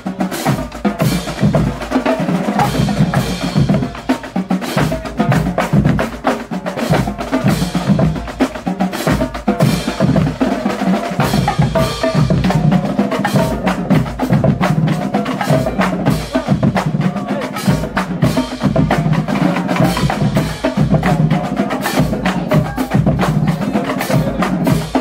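Marching band drumline playing a rapid, steady cadence: snare and tenor drums rattling over a row of pitched bass drums.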